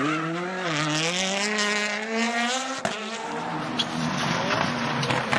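World Rally Car's 1.6-litre turbocharged four-cylinder engine revving hard out of a corner, its pitch dipping and then rising steadily as it accelerates. Just under three seconds in, the sound cuts suddenly to a Citroën C3 WRC running on a snowy stage, its engine less distinct under tyre noise.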